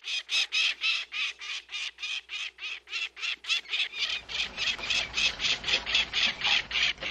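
A bird calling in a rapid, even series of short, high squawks, about four a second, with a low background rumble coming in about four seconds in.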